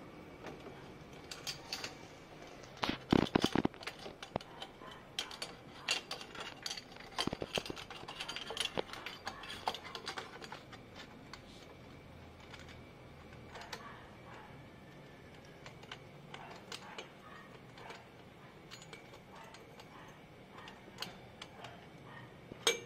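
Socket ratchet wrench clicking in short runs as bolts on a scooter's exhaust elbow are tightened, with a cluster of louder metal knocks about three seconds in. The clicks come thick for the first ten seconds or so, then sparser.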